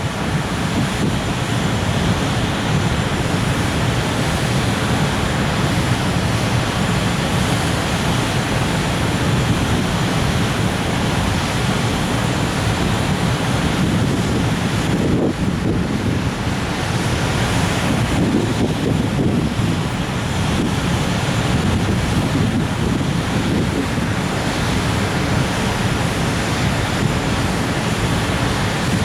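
Wind buffeting the microphone: a loud, steady rushing rumble, heaviest in the low end, with no clear rhythm or tones.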